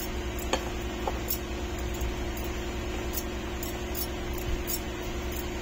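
A steel spoon stirring a dry gram-flour mix in a steel bowl, with light, scattered clicks of the spoon against the bowl, over a steady low hum.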